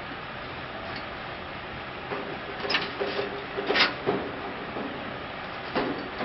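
A loaded brick cart's tipping body being tilted up: steady scraping with a few sharp clatters of hollow clay bricks, two of them about three and four seconds in and more near the end.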